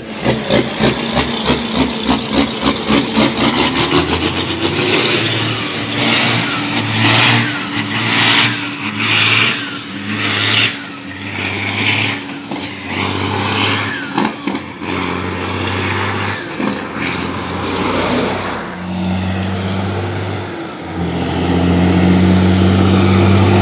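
Heavy diesel dump trucks on the road. One passes close with a fast pulsing engine note, then the drone of an approaching truck's engine comes and goes and grows louder near the end.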